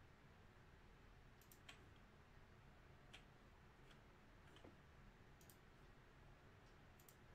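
Near silence, with a few faint, scattered clicks from a computer keyboard.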